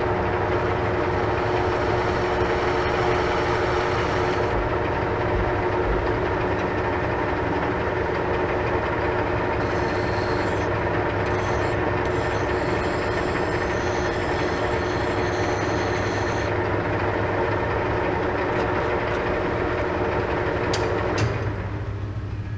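Metal lathe running with a steady hum. From about 10 to 16 seconds a hand file scrapes against the spinning steel pin to break its edge. Near the end the lathe is switched off and winds down.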